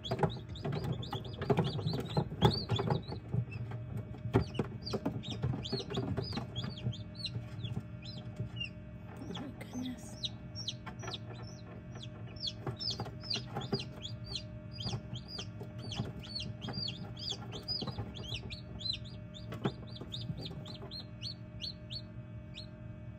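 Newly hatched chicks peeping inside an egg incubator: a long run of short, high, falling peeps, several a second, over the incubator's steady hum. Several knocks and bumps in the first several seconds.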